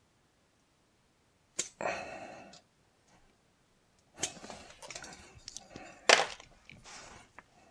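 Butane refill canister pressed onto an S.T. Dupont lighter's fill valve: a click, then short spurts of gas hissing. The nozzle tip does not fit, so gas leaks out around it. A sharp click about six seconds in is the loudest moment.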